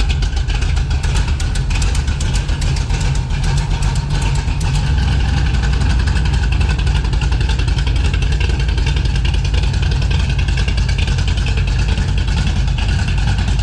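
Jeep CJ's carburetted engine idling steadily while warming up after months of sitting, freshly started without a choke. Its low rumble gets fuller about five seconds in.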